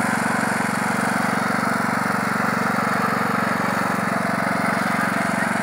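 Ride-on lawn mower's engine running steadily as it tows a loaded sled across grass.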